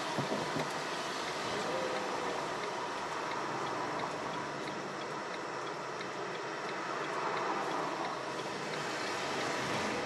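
Street traffic heard from inside a stopped car: a steady hum of traffic with motorcycle engines passing, one of them rising and falling in pitch.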